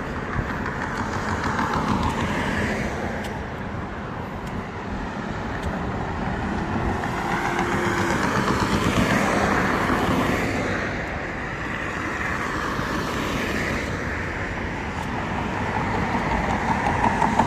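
Road traffic: cars passing continuously, the noise swelling and easing as vehicles go by.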